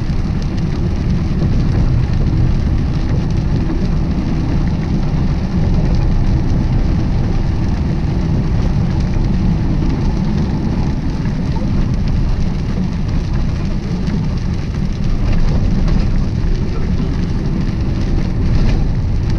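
Steady cab noise of a semi truck driving on a rain-wet highway: a low engine and road rumble with the hiss of tires on wet pavement and rain.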